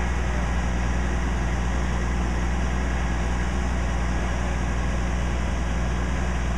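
Fire engine's engine idling: a steady low hum that does not change.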